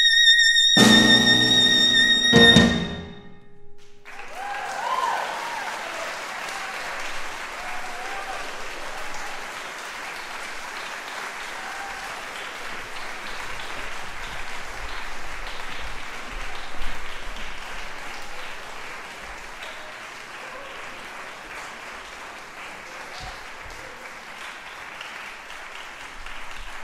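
Clarinet holding a high final note over closing chords from piano and drum kit, with a big last hit about two and a half seconds in. Then an audience applauding, with a few cheers soon after the applause starts.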